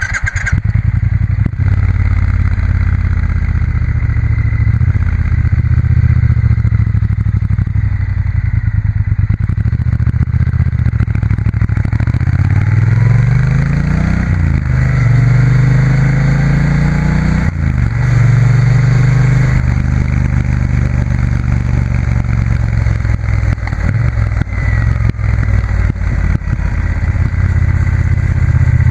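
Triumph Bonneville T120's 1200 cc parallel-twin engine running through Vance & Hines aftermarket silencers while riding. The exhaust note is steady, rises in pitch about halfway through, drops sharply, and drops again a few seconds later.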